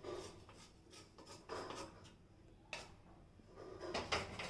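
Roasted fennel and fenugreek seeds being scraped out of a pan into a small stone mortar: a few faint scrapes and light clicks, with a small cluster near the end.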